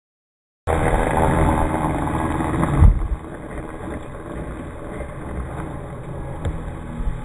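After a brief silence, a radio-controlled model airplane's motor running as the plane rolls along a paved path on its takeoff run, with wind noise on the microphone. It is loud at first, and after a thump about three seconds in it is quieter.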